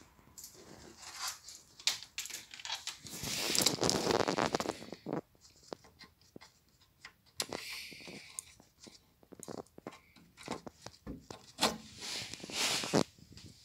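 Clicks, scrapes and rustling from a cable connector being handled and pushed into the rear-panel jacks of a vintage Sony stereo console. The clicks come irregularly, with two longer, louder stretches of scraping about three to four seconds in and again near the end.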